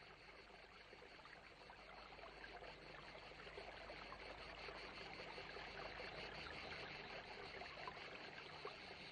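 Faint running water, flowing steadily and swelling a little through the middle.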